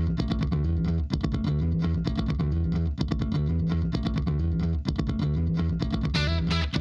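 Background music: guitar and bass over a steady beat.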